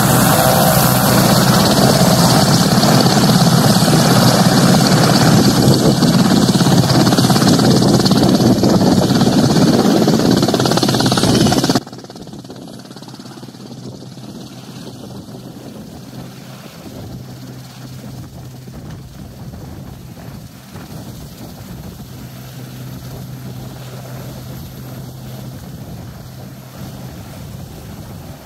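Westland Sea King helicopter running close by on the ground: its twin turboshaft engines and main rotor make a loud, dense, steady noise. About twelve seconds in the level drops abruptly to a quieter, steady rotor and engine sound with a low hum.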